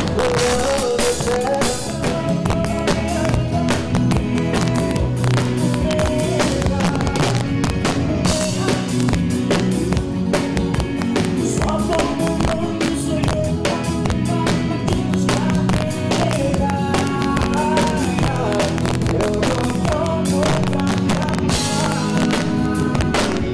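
Live band playing a song during a soundcheck: drum kit keeping a steady beat under bass, guitar and a melody line.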